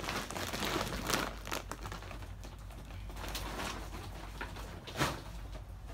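Rustling and crinkling of plastic and packing materials being handled, with a few sharp knocks; the loudest knock comes about five seconds in.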